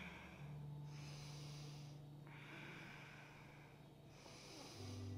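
Faint ujjayi breathing, slow hissing breaths drawn through a narrowed throat, with inhales and exhales alternating about every one to two seconds, over a low steady hum.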